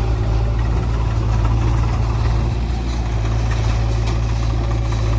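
Heavy diesel engine idling steadily, a constant low hum with no change in speed.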